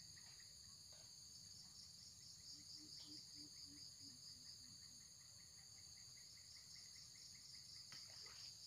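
Faint steady chorus of insects chirring in several high-pitched bands, with a pulsing trill repeating about three to four times a second. About two and a half seconds in comes a short run of faint low notes that fall slightly in pitch.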